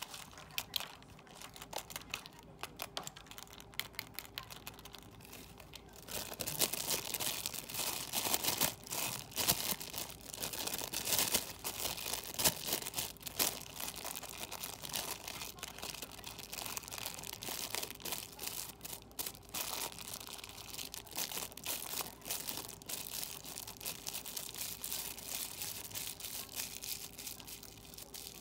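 Light, sparse clicks and taps of a plastic toy ball being handled, then from about six seconds in, thin metallic foil crumpled and crinkled between the hands in a dense, continuous crackle.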